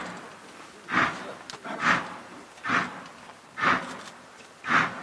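Austerity 0-6-0ST saddle tank steam locomotive working hard up a gradient, its exhaust barking in slow, regular beats about one a second, each beat echoing briefly.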